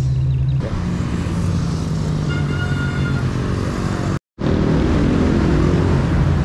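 Road traffic heard from a bicycle: motor vehicle engines running close by over a steady rush of road noise. The sound drops out for a moment about four seconds in.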